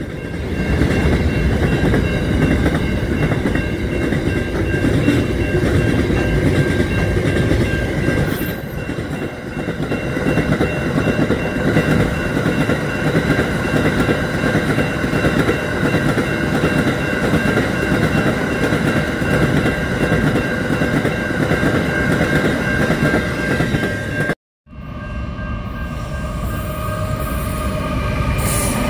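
A freight train passing a level crossing at speed: a steady heavy rumble of wheels on rail with several steady high tones ringing above it. About 24 seconds in it cuts off for a moment, and then the Indian Pacific's diesel locomotive is heard approaching along the rails, again with steady tones over the rail noise.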